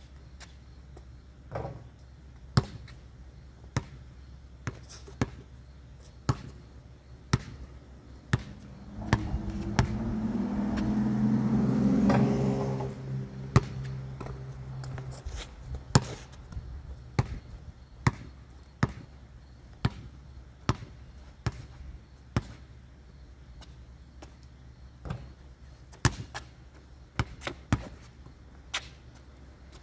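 A basketball bouncing, one sharp bounce roughly every second. In the middle a passing vehicle rises and fades, louder than the bounces for a few seconds.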